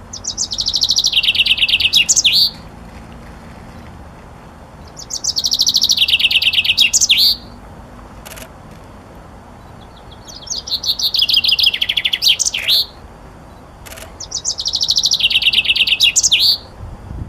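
Tenerife chaffinch singing. Four song phrases come about five seconds apart, each a fast trill of notes stepping down in pitch and ending in a short flourish.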